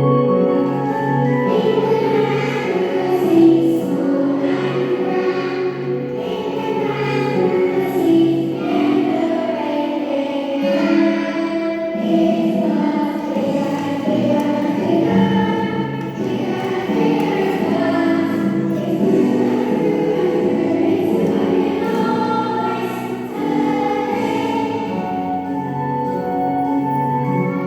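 Music with a group of voices singing, choir-like, over instrumental accompaniment.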